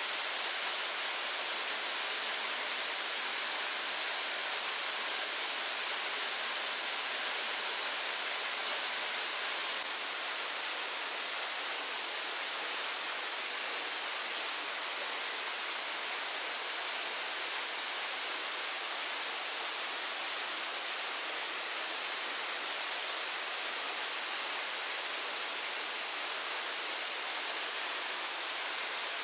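Falling water, a steady even hiss without breaks.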